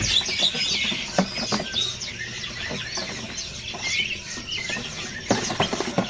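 Many caged songbirds chirping and twittering at once in short, high, overlapping calls, with a few sharp clicks.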